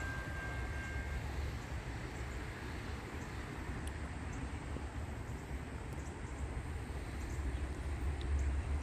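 A freight locomotive's air horn holds a steady note that cuts off about a second in. Then comes a steady low rumble with a hiss as the train approaches, growing a little louder near the end.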